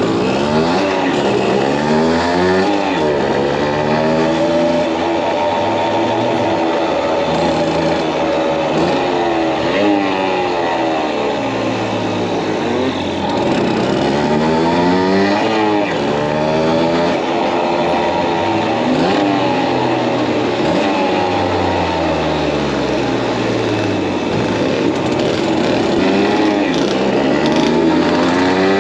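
1959 Kreidler Florett's small single-cylinder two-stroke engine running under way, its pitch rising and falling over and over as the bike speeds up and slows.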